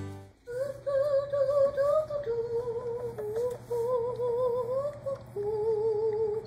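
A woman humming a slow, wordless melody in a few long held notes with a wide vibrato, dropping to a lower held note near the end.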